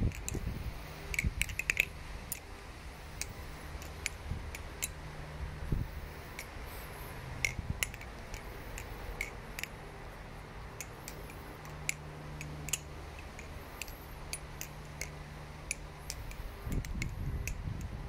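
Balisong (butterfly knife) being flipped: irregular, quick metallic clicks and clacks as the handles swing around the pivots and knock against each other and the blade.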